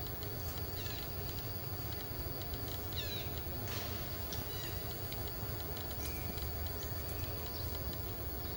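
Forest ambience: insects ticking in rapid runs of high pulses, with a few short bird chirps, over a steady low rumble.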